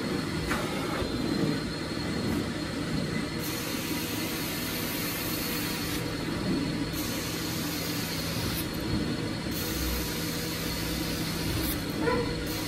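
Carpet extraction machine's vacuum pulling through a hose and wand dragged across a carpet, giving a steady suction roar. A higher hiss comes and goes three times for a couple of seconds each as the wand is worked in strokes.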